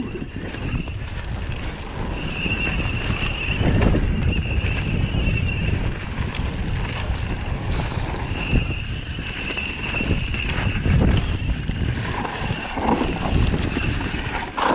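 Mountain bike descending a dirt trail: wind buffeting the camera microphone with a low rumble, and tyre and frame noise over the ground surging every few seconds. A high, steady buzz comes and goes in stretches.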